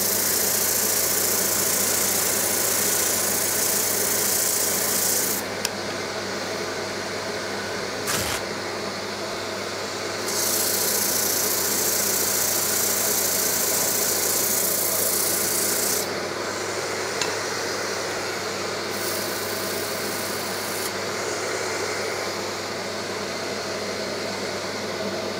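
Wood lathe motor running with a steady hum while a sanding block is pressed against the face of the spinning wooden stool seat to true it flat. The rubbing hiss is loud for the first five seconds and again from about ten to sixteen seconds in, and fainter in between and near the end.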